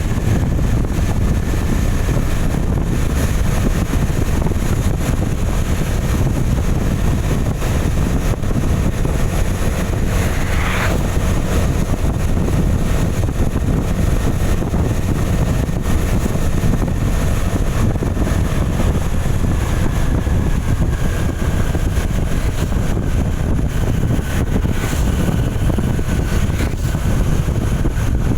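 Steady low rumble of wind buffeting the microphone of a moving vehicle, with the vehicle's road noise underneath. A brief higher-pitched sound about eleven seconds in.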